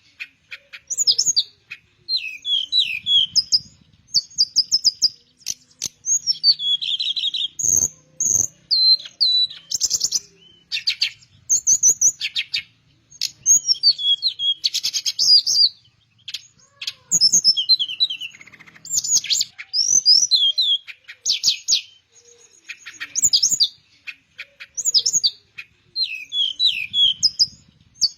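Teledekan melayu, a blue flycatcher kept as a songbird, singing: phrase after phrase of quick, high-pitched trills and whistled notes, with brief pauses between phrases.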